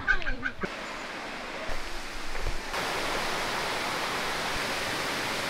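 Steady rushing of Cambugahay Falls, a tiered waterfall pouring into a pool. It comes in louder about three seconds in and then holds even.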